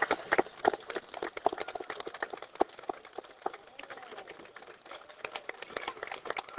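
Pool water splashing as synchronized swimmers kick and move through it: a rapid, irregular string of sharp splashes and slaps, busiest in the first couple of seconds.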